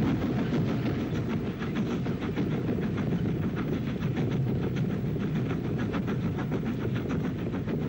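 WT class 2-6-4T steam tank locomotive hauling a train of wagons: a steady rumble with rapid, even beats of about five a second.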